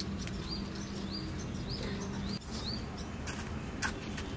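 A small bird calling repeatedly, short rising chirps about twice a second, over a steady low hum. Two sharp knocks come near the end.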